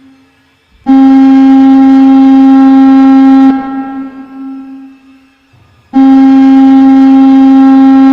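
Loud, steady horn blast, held about two and a half seconds and echoing away, then a second identical blast begins about five seconds later: a sound effect in a fictional emergency alert broadcast warning of objects of extraterrestrial origin.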